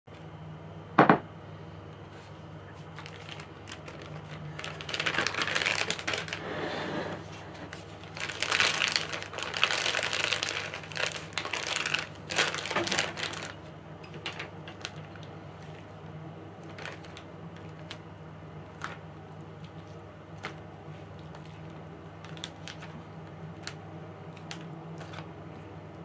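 A zip-top plastic storage bag crinkling and rustling as it is handled and opened, in two bursts of several seconds, with a single sharp knock about a second in. Afterwards only scattered light clicks over a low steady hum.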